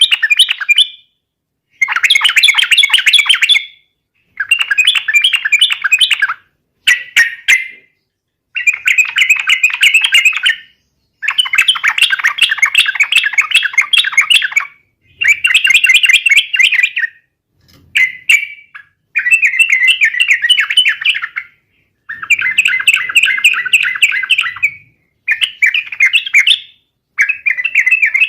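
Yellow-vented bulbul (trucukan) singing loud, bubbly chattering phrases, each one to three seconds long, following one another with short pauses.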